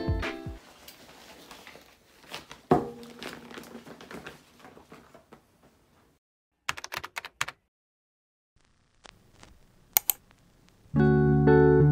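Handling of a blue IKEA shopping bag on a wooden table: one thunk about three seconds in, then light rustling and scattered small clicks, with a quick run of clicks around the middle and one sharp click near the end. Background music ends at the start and comes back in near the end.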